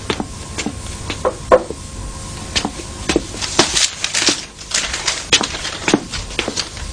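A run of irregular light knocks and clicks, some sharper and louder than others, a few each second.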